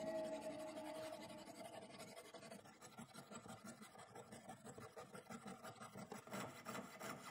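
Jeweler's saw cutting through a brass plate: faint, quick, even rasping strokes of the fine blade, a little louder near the end.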